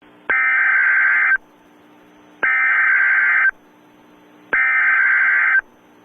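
Emergency Alert System SAME header: three bursts of digital data tones, each about a second long with about a second between them. This is the coded preamble that opens an EAS alert.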